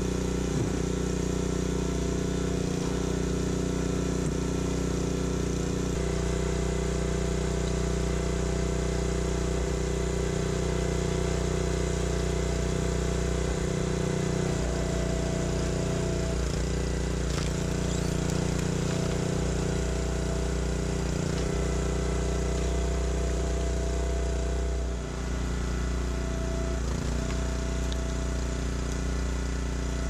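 Small gas engine of a hydraulic log splitter running steadily throughout, its note shifting a few times as the splitter works.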